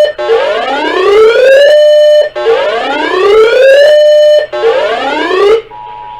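Electronic whooping siren alert tone from an emergency broadcast. Each whoop rises steeply for about a second and a half and holds briefly at the top, repeating about every two seconds, three and a half times. It cuts off suddenly, and near the end a steady two-note Emergency Alert System attention tone begins.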